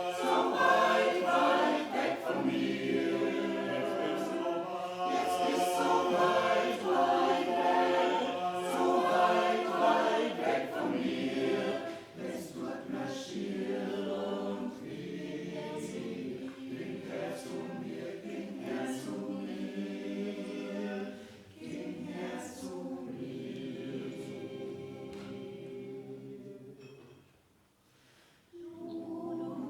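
A choir singing a song in harmony, with long held notes; the singing breaks off briefly about 27 seconds in and then starts again.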